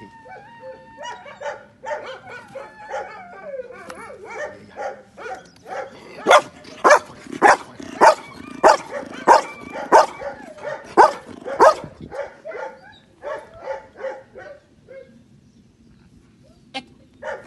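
Belgian Malinois whining in wavering high calls, then barking in an even run of about ten sharp, loud barks, a little under two a second, then softer short yips that die away.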